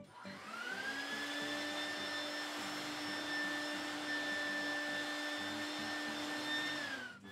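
Vacuum cleaner running through a hose held over HO-scale model railroad track, sucking up loose ballast. Its motor starts with a rising whine just after the start, runs steadily, and drops in pitch near the end.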